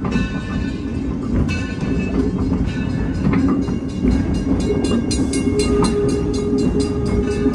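Passenger train pulled by the 0-6-4T tank steam locomotive Torch Lake, running on the rails: a steady rumble, with quick regular clicks at about four a second from about halfway through.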